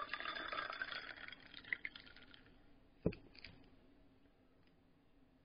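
Close rustling and crackling handling noise with small clicks for about two and a half seconds, then one sharp knock about three seconds in.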